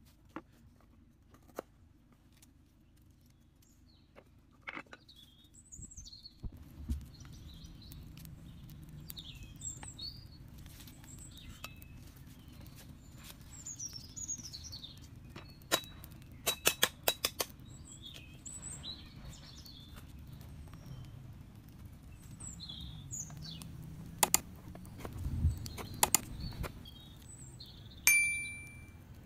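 Small forest birds chirping and twittering in short calls over a low steady background, broken by a quick run of sharp knocks and clicks midway and a few more later. Near the end comes a bright ringing ding, the chime of a subscribe-button animation.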